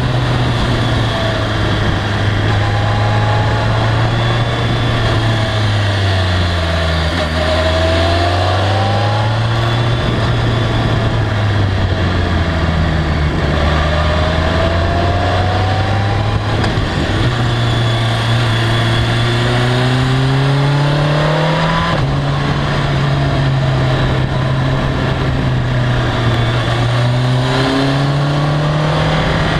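BMW K1300R's inline-four engine pulling under way over steady wind rush. Its pitch drops as the bike slows into a bend about six to eight seconds in, then rises in long glides as it accelerates out, with an upshift marked by a sudden pitch drop about two thirds of the way through.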